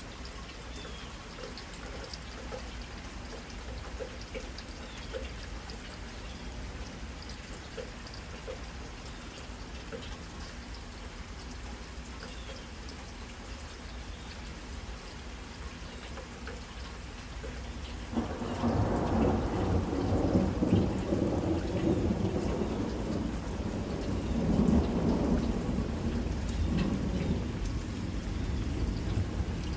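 Steady heavy rain with drops ticking on a surface. About two-thirds of the way through, a loud rolling rumble of thunder sets in and goes on for about ten seconds, swelling twice.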